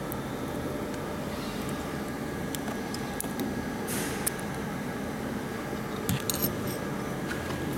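Steady machine hum in a workshop, with a few light metallic clicks and taps as the jaws and knurled screws of a rotary chuck attachment are handled, about four seconds in and again around six seconds in.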